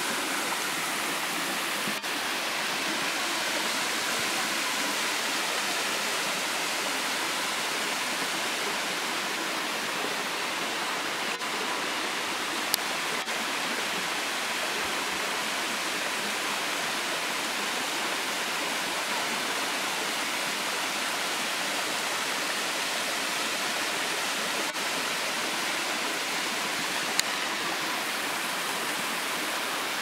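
Steady rushing and splashing of a waterfall: several thin cascades spilling down a layered rock face into a shallow pool. Two short sharp clicks stand out, about fifteen seconds apart.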